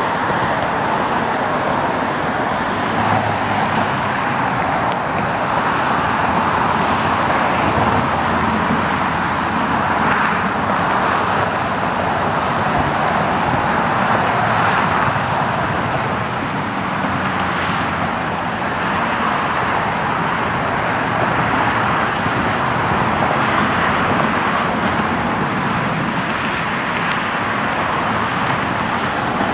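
Steady road traffic noise, swelling and easing as vehicles pass.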